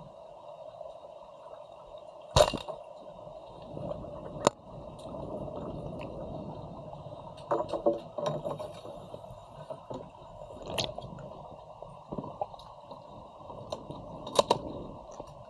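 Underwater sound in a swimming pool: a steady hum with scattered sharp clicks and knocks, the loudest about two and a half seconds in, a cluster around the middle and another strong one near the end.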